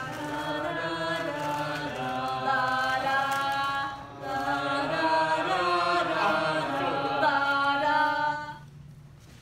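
A small group of teenage voices singing a cappella, with long held notes, a short breath break about four seconds in, and stopping about a second before the end.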